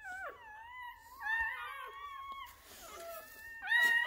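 Newborn Rottweiler puppies crying: a string of thin, high, wavering squeals and mews, several overlapping a little over a second in and the loudest one near the end.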